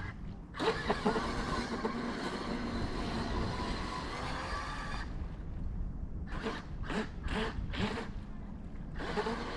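Electric RC jet boat on a 6S battery running across the water, its motor and jet pump whining steadily. About halfway through the throttle drops off, then comes back in four or five short bursts before the boat runs on steadily again near the end.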